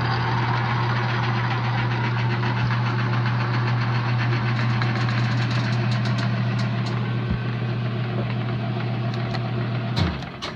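Logan 2557 12x36 lathe running in back gear on its variable-speed drive: a steady motor and gear hum. About ten seconds in it is switched off at the push-button station and the hum drops away.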